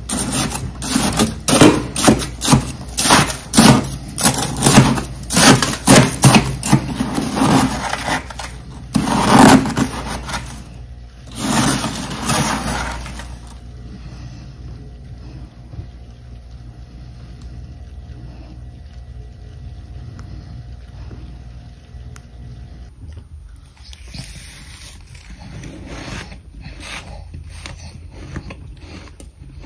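Large stainless-steel spoon scraping and scooping powdery freezer frost in quick repeated strokes, about two a second, followed by two longer scoops. Over the second half only a faint steady hum and a few soft rustles remain.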